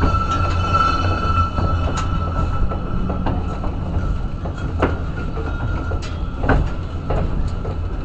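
Cable-hauled incline railway car running up its steep track: a steady low rumble with scattered sharp clicks and clacks. A thin steady whine is strongest in the first couple of seconds and then fades.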